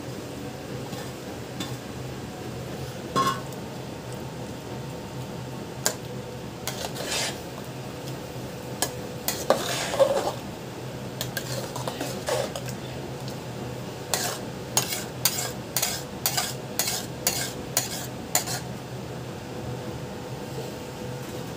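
A steel spoon stirring thick fruit custard in a steel pot, clinking and scraping against the metal. Near the middle there are a few louder scrapes, and later a run of even strokes at about two a second, over a steady low hum.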